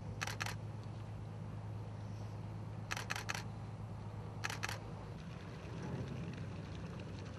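Camera shutters firing in quick bursts of two or three clicks, at the start, about three seconds in and again about four and a half seconds in, over a steady low hum.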